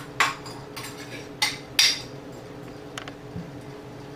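A metal spoon scraping and clinking against a small bowl while scooping brown sugar out into a glass mixing bowl: four quick strokes in the first two seconds, then two fainter clicks.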